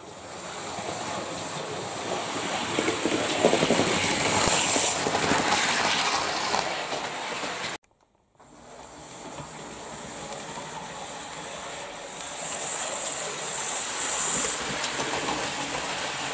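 Model train running on the layout's track: a motor's whine with the rattle of wheels over the rails, growing louder as it nears. The sound cuts off abruptly about eight seconds in, then starts again and builds up a second time.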